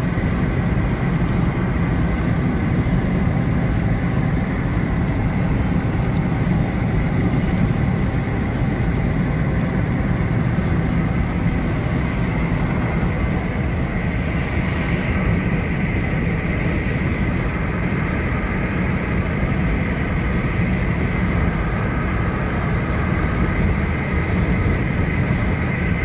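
Steady road and engine noise heard inside a moving car's cabin: an even low rumble of tyres on asphalt that runs without a break.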